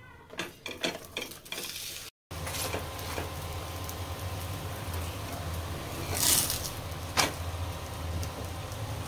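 Obbattu (sweet stuffed flatbread) frying in ghee on a hot iron tawa: a steady sizzling hiss, with a louder swell about six seconds in. A few light clicks and taps from handling the flatbread come first, then a brief gap about two seconds in.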